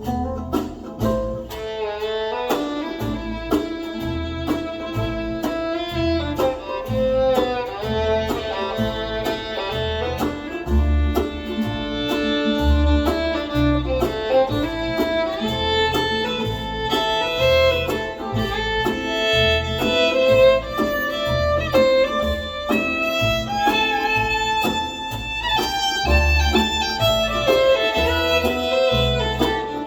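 Instrumental break of a country gospel song played back through restored Pioneer CS-410 speakers: a fiddle carries the melody over guitar and a steady bass beat.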